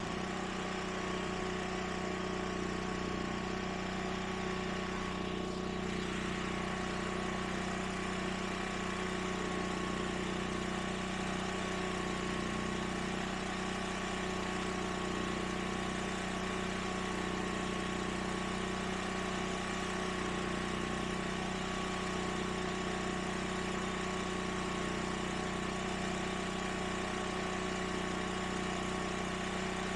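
Predator 10,000-watt portable generator's engine running at a steady speed, an even hum with no change in pitch or level.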